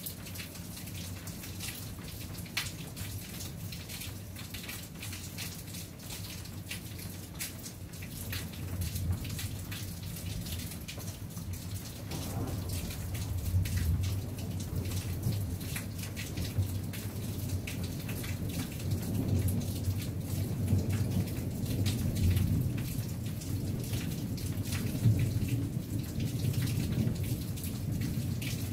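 Steady rain with many separate drops tapping close by, and low rolling thunder that builds partway through and keeps rumbling in swells.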